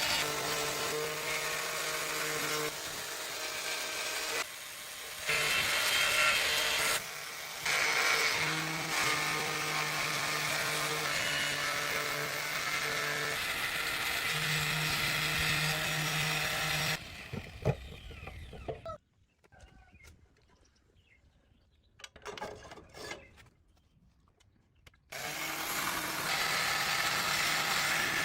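A power tool running in long stretches, stopping briefly twice and then winding down for several seconds of low-level sound with a few faint knocks, before it starts up again near the end.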